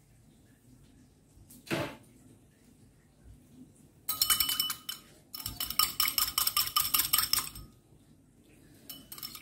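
Wire balloon whisk beating egg whites in a ceramic bowl: rapid metallic clinking of the wires against the bowl in two bursts from about four seconds in, starting again near the end. A single knock about two seconds in.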